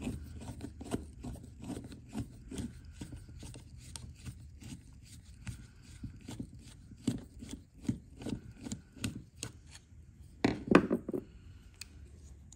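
Screwdriver clicking and scraping against a small-engine carburetor's jet as it is worked loose, in irregular small metal-on-metal strokes. A louder clatter of the carburetor body being handled comes near the end.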